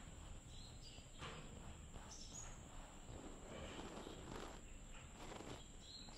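Faint outdoor background: a steady thin high whine under a low hiss, with a few brief high chirps and some soft rustling.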